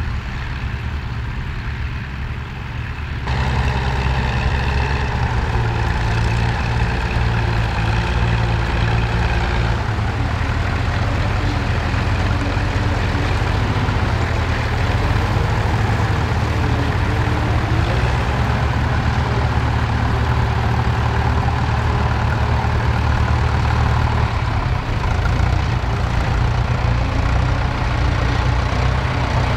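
Fordson Major tractor engines pulling ploughs, a steady low drone whose pitch wavers slightly under load. It gets louder about three seconds in, when a tractor is close by.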